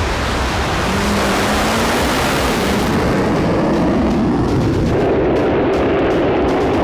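A vehicle accelerating flat out from a standing start. It is a loud, continuous roar, with an engine note that rises over the first couple of seconds and then holds.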